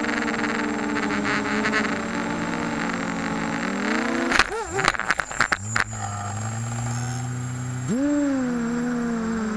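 Onboard sound of a 250-size racing quadcopter's motors and propellers whining, rising in pitch as it drops toward the grass. About four seconds in it hits the ground in a quick clatter of impacts lasting over a second: a crash. The motors then keep running at a lower steady pitch and rev up sharply near the end.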